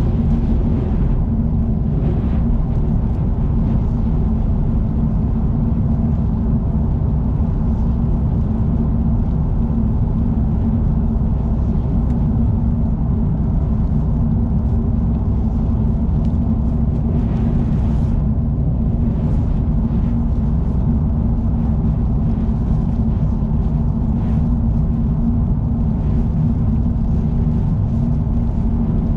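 Car travelling on an expressway: a steady low drone of road and engine noise that does not let up.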